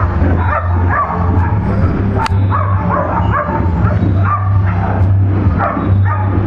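A dog barking in short, high yelps, about two a second without a break, over a steady low hum.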